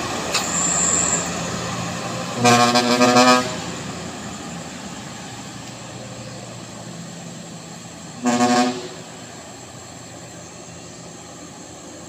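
Diesel truck engine pulling hard uphill under heavy load, towing an overloaded pickup, fading steadily as it moves away. Two vehicle-horn toots cut through it: one about a second long a couple of seconds in, and a shorter one about eight seconds in.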